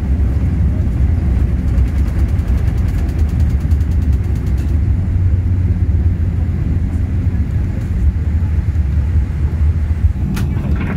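Steady low rumble of a Boeing 787-8 airliner cabin, the engine and airflow noise heard from a window seat.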